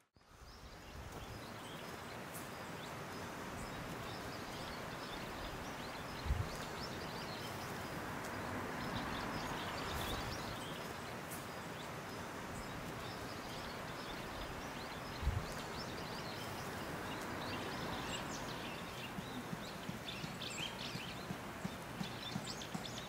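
Steady rain falling through the woods, with scattered pattering drops and two dull thumps about six and fifteen seconds in. It fades in over the first couple of seconds.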